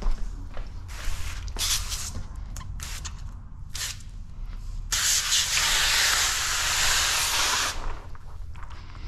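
Hose-fed spray wand hissing as it sprays onto a sheet of paint protection film: a few short squirts, then one long spray of about three seconds past the middle.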